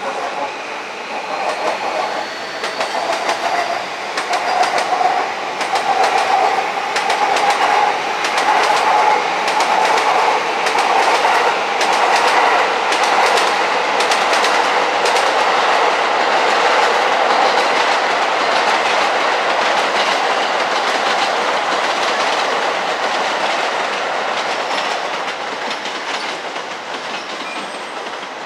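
Electric train running past on the station tracks, its wheels clicking over rail joints. A motor whine rises in pitch over the first several seconds as the train picks up speed. The clatter is loudest through the middle and eases off near the end.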